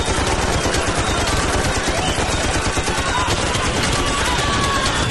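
A dense, unbroken stream of rapid sharp cracks, the sound of sustained automatic gunfire.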